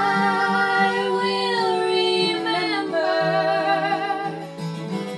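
A woman's voice singing long held notes with vibrato, over acoustic guitar accompaniment in a folk song.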